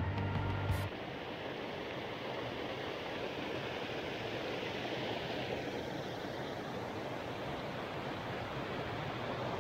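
Steady rush of flowing water from a mountain stream. A low tone stops about a second in.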